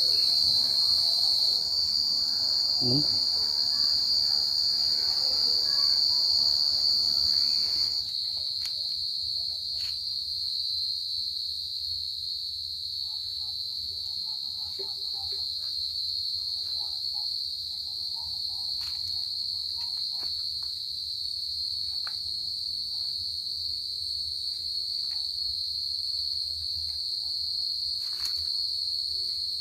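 Field crickets (dế mèn) singing a continuous, steady high-pitched trill. It is louder for the first eight seconds or so, then drops to a somewhat quieter level.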